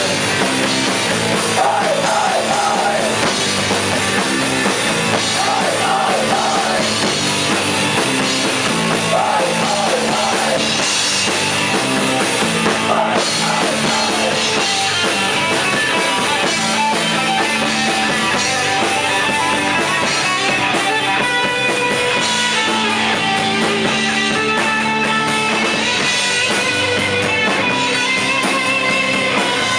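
Rock music with a drum kit and guitars, played at a steady loud level.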